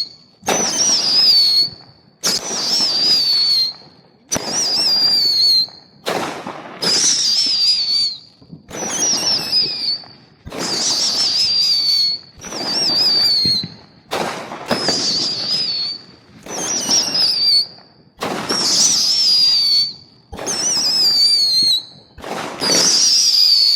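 A "Sugar Rush" consumer firework going off in a regular series of whistling bursts, about one every two seconds. Each burst is a second-long, high, wavering whistle over a hiss.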